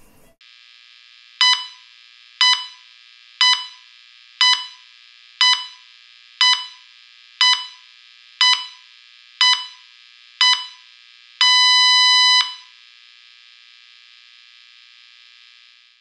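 Hospital patient heart monitor beeping: ten short electronic beeps about one a second, each pulse marking a heartbeat. A single held beep of about a second follows, over a steady hiss.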